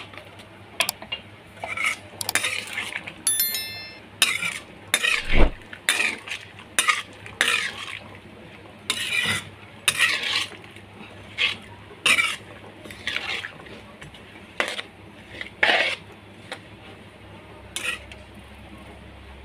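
Metal slotted spatula stirring and scraping boiled black chickpeas around a wok, in irregular strokes. There is a ringing metal clink about three seconds in and a louder knock a couple of seconds later, and the stirring stops near the end.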